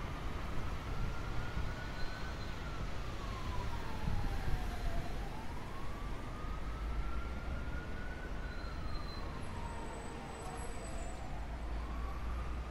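A siren wailing slowly, its pitch climbing and falling about every six seconds, over a steady low rumble.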